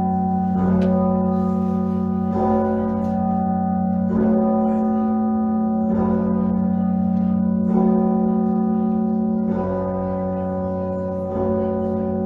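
The Anzac Bell, a large swinging church bell, struck by its clapper about every two seconds, roughly seven strokes. Each stroke rings on over a steady deep hum.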